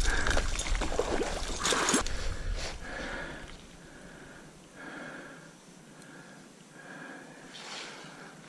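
Short, regular puffs of breathing or sniffing close to the microphone, about one a second, after a couple of seconds of rustling and handling noise.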